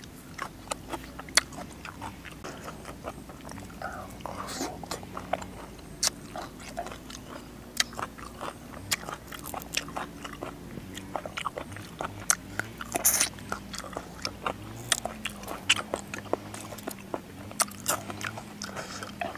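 Close-up eating sounds: a man biting and chewing crunchy raw green vegetables and salad, with many sharp crunches and mouth clicks. A brief louder rush of noise comes about 13 seconds in, over a faint low hum.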